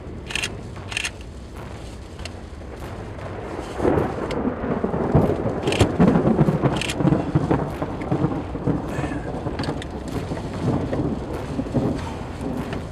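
Outdoor storm noise near a tornado: a low, rough rumble that swells about four seconds in and slowly eases, with a few sharp ticks.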